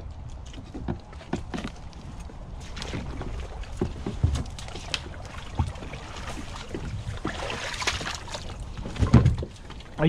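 Kayak hulls bumping and scraping against logs, rocks and branches as the kayaks are pulled in to the bank and climbed out of. It is a run of irregular knocks and rustles, with a heavy thump about nine seconds in.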